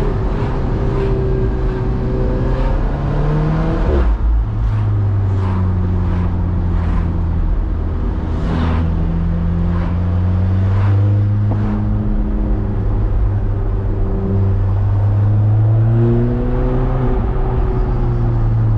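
Alfa Romeo 4C's mid-mounted turbocharged 1.75-litre four-cylinder engine running at low revs, heard from inside the cabin while cruising slowly. About four seconds in the revs drop sharply, and after that the engine note rises and falls gently with light throttle.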